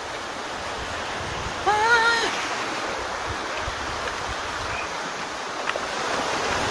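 Sea waves washing against a rocky shore in a steady rush, with a short call from a person's voice about two seconds in.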